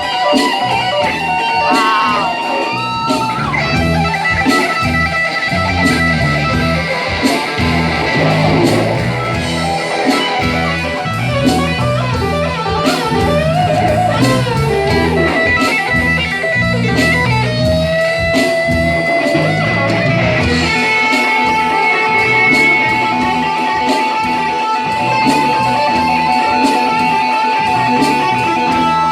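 Live rock-blues band with an electric guitar solo over drums and bass: bent, sliding lead notes, then a single note held long over the beat for the last third.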